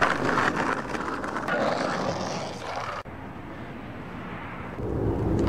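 Skateboard wheels rolling along a rough concrete drainage channel, a steady gritty rumble. It cuts off suddenly about three seconds in to a quieter rumble that builds again near the end.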